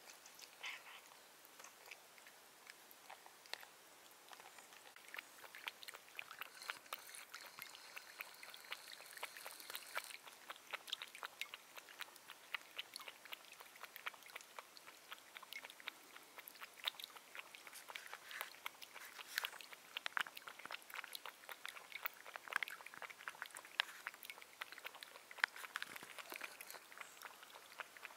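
A cat eating: crunching dry kibble, then lapping milk from a small glass pot, a long run of faint, quick clicks.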